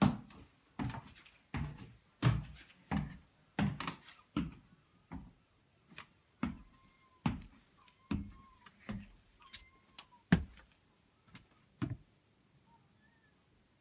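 Footsteps climbing a wooden ladder-stair and then walking on an attic floor: a steady run of heavy thuds, a little under a second apart, that stops about twelve seconds in. Faint short squeaks sound between the steps in the middle.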